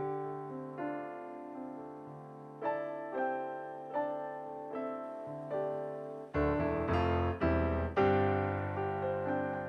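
Background piano music: a gentle melody of single struck notes, turning louder and fuller with deep low chords about six seconds in.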